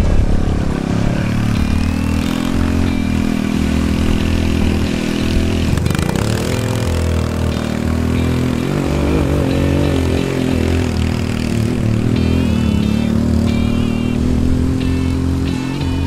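American Sportworks Carbide 150cc go-kart engine running under way, its pitch dipping and then climbing again about a second in and again about six seconds in as the throttle is eased off and opened back up.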